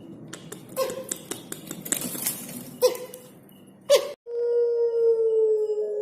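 Puter pelung (Barbary dove) cooing: three short coo notes among light clicking, then a long drawn-out coo held on one pitch that sags slightly at its end.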